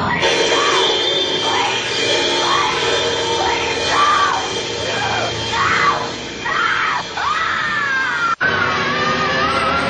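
A person screaming again and again, high shrieks that rise and fall, over loud music. The sound cuts out for an instant near the end.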